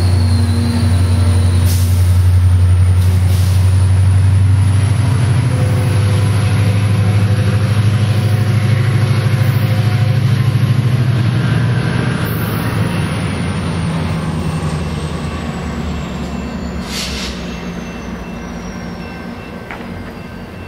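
Metrolink commuter train with a MotivePower MP36PH-3C diesel locomotive pulling away, the diesel engine's low drone loud at first and fading in the second half as the train draws off. A few sharp clicks from the wheels on the rails.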